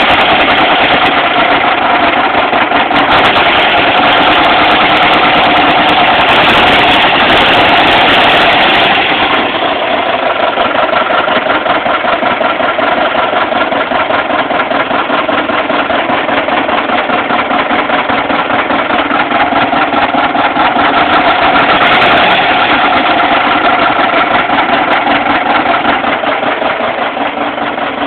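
Freshly built 1776cc air-cooled VW flat-four engine running with a rapid knock, which the owner believes is the connecting rods failing. It runs at higher revs for the first nine seconds or so, drops back, and picks up again briefly about two-thirds of the way through.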